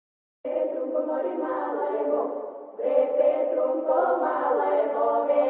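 Background music of a choir singing, starting about half a second in, with a short dip just before the middle.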